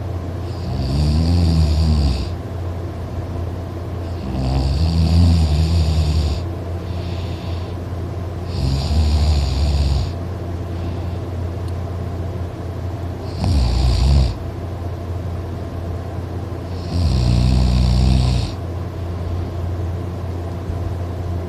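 A person snoring very loud while asleep, five snores about four seconds apart, over a steady low hum.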